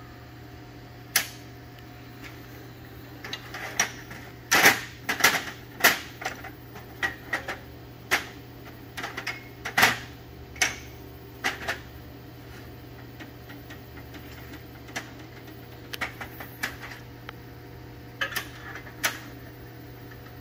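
Aluminium exhaust pipe pieces and tools being handled on a steel welding table: scattered sharp metal clanks and clicks, busiest from about four to twelve seconds in, over a steady low hum.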